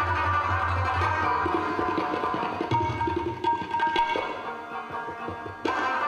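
Afghan rubab plucked in a lively instrumental passage, accompanied by tabla. The tabla's bass drum sounds a low, ringing tone in the first second or so. The music drops quieter for a moment, then comes back in strongly near the end.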